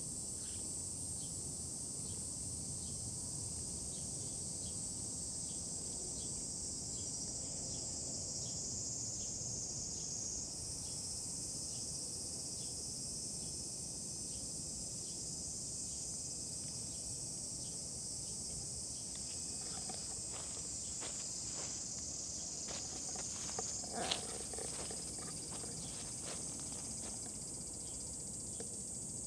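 Steady, high-pitched chorus of insects in the trees and grass, with faint, regular ticking under it for a stretch. Near the end come a few short rustles and knocks, one sharper than the rest.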